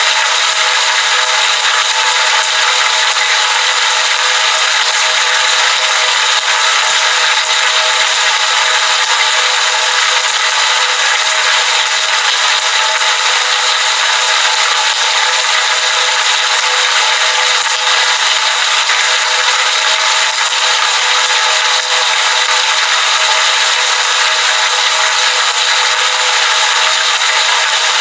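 Heavy rain falling steadily, a dense, even hiss with no breaks or changes.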